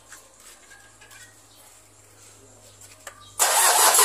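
Faint clicks and taps of hands working on a vehicle's dashboard wiring. Near the end comes a loud burst of rushing noise lasting under a second.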